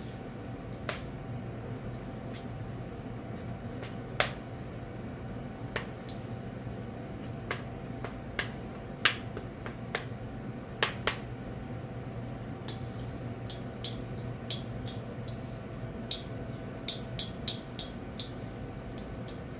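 Chopsticks clicking and tapping against a stainless steel mixing bowl while tossing a glass-noodle salad: scattered sharp ticks, a few louder knocks in the middle and a quicker run of light clicks near the end.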